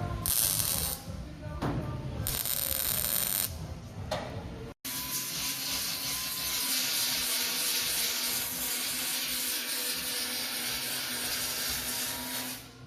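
Shop power tools on metalwork: a few short, high hissing bursts, then a steady high whir from a tool running for about eight seconds.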